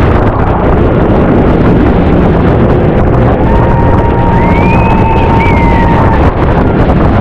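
Motorboat running at speed, its engine noise mixed with heavy wind buffeting the microphone. In the middle a thin, steady whistle-like tone sounds for about three seconds, with a shorter rising-and-falling whistle above it.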